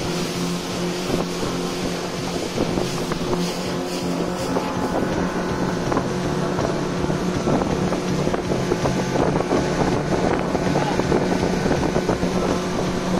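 Motorboat engine running steadily under way, a constant drone with wind buffeting the microphone.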